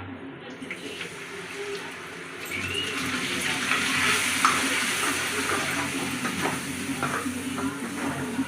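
Onion, ginger and garlic paste frying in hot oil, sizzling, while a spoon stirs it in the pan with light scrapes and clicks. The sizzle swells about two and a half seconds in.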